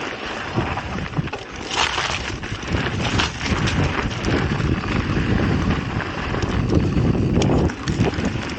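Mountain bike riding on a dirt trail, heard from an action camera: wind buffeting the microphone over a steady rumble, with frequent short rattles and knocks from the bike.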